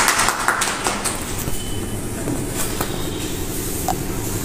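A steady low rumble with an even pulsing pattern, like an engine running, and a few faint clicks over it.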